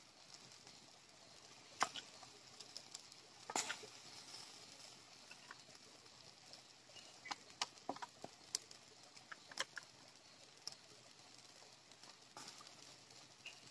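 Wood fire crackling faintly under a spit-roast, with sharp pops at irregular intervals, a few louder ones about two and four seconds in and a cluster around eight seconds.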